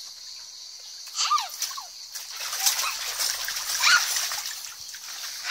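Shallow water splashing in an inflatable paddling pool as a doll is dipped and swished through it, heaviest from about two seconds in. A few short chirps or squeaks come about a second in.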